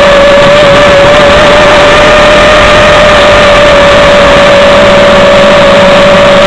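Loud, steady whine of an FPV aircraft's electric motors and propellers at a near-constant throttle, picked up close by the onboard microphone.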